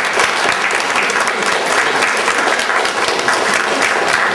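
Audience applauding: a roomful of people clapping in a dense, steady round.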